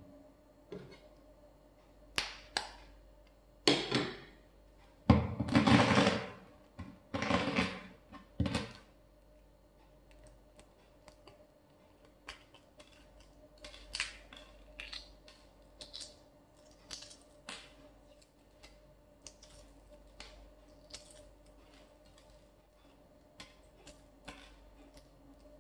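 Kitchen utensils and dishware being handled: a cluster of loud knocks and clatters in the first nine seconds, then scattered light taps and clicks.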